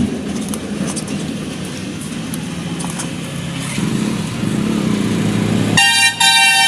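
Steady rumble of passing road traffic, then a vehicle horn honks twice in quick succession near the end.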